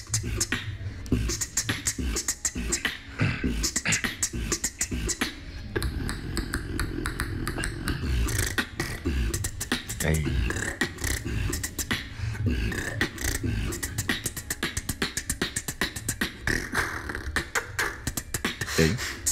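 Beatboxing done with a cheek-retractor mouth guard holding the lips back, so no lip sounds are possible: a fast, dense run of clicks and hissing percussion over a steady low bass.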